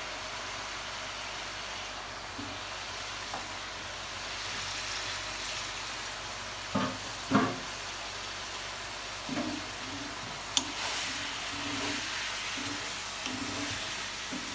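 Chicken pieces frying in hot ghee in a karahi, a steady sizzle throughout. Two sharp knocks come about seven seconds in and another a few seconds later.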